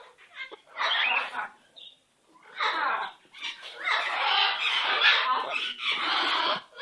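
Pet parrot making a dreadful, harsh, raspy squawking noise: two short squawks, then one long drawn-out squawk of nearly three seconds in the second half.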